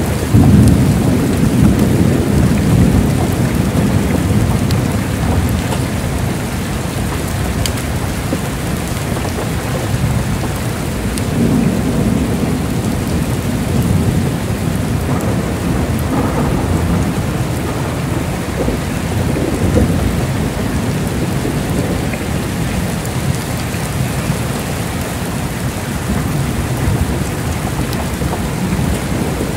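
Heavy rain falling steadily, with rolling thunder rumbling underneath; a loud thunderclap rumble about half a second in, then more rumbles swelling and fading.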